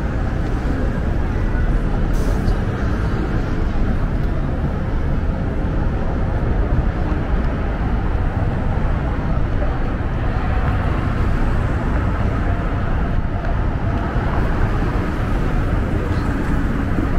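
Steady city street traffic noise from vehicles on a downtown road, with no single vehicle standing out.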